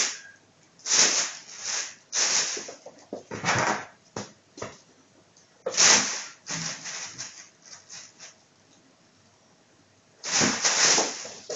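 Plastic bag rustling and crinkling in irregular bursts as a kitten plays with it, with a quiet pause of about two seconds in the latter half.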